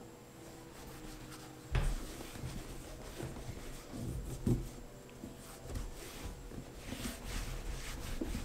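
Fingers rubbing Obenauf's LP, a beeswax-based boot grease, into a leather work boot: soft, scratchy rubbing. There is a sharp knock about two seconds in and another about four and a half seconds in.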